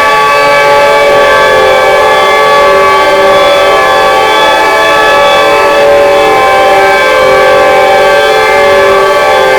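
EL-SYSTEMA v2 synthesizer playing a dense drone chord: many layered tones held steady.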